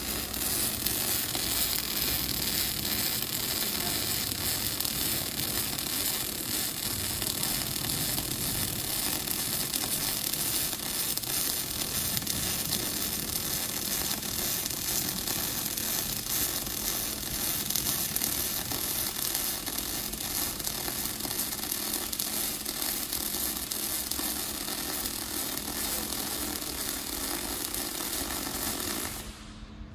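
Robotic pulsed MIG (GMAW-P) welding arc: a steady hiss and crackle that cuts off suddenly near the end as the arc stops.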